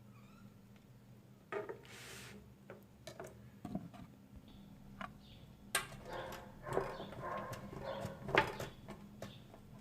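Kitchen handling sounds during food preparation: scattered knocks and taps of dishes and utensils on a counter, with a short hiss about two seconds in and busier clatter in the last few seconds.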